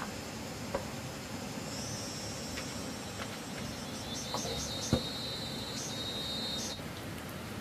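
High-pitched insect trilling over a steady hiss of water, such as rain or running floodwater. The trill starts about two seconds in, breaks into a few short pulses midway, and stops shortly before the end; a sharp click sounds about five seconds in.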